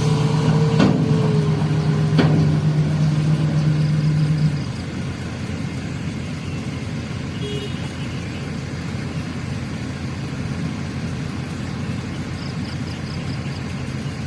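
Truck engine running. A steady droning note holds for the first four and a half seconds, then the sound drops to a quieter, even engine rumble.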